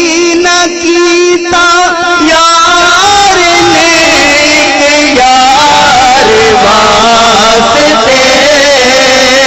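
Man singing a naat into a microphone: one long, ornamented vocal line, drawn out and wavering up and down in pitch without a break.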